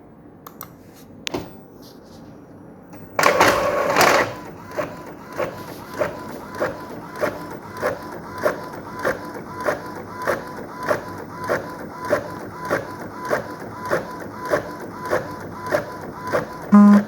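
Printer working through a print job: a low hum with a single click, then about a second of loud whirring at the start of the paper feed. After that comes a steady run of clicks about every 0.6 s as it prints, and a short loud buzzy beep near the end.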